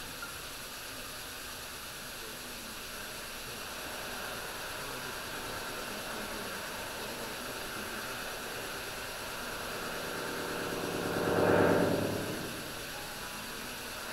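Modular synthesizer electronic music: a steady noise-like wash with no clear pitch, swelling into a louder, rapidly fluttering burst about eleven seconds in that then fades back.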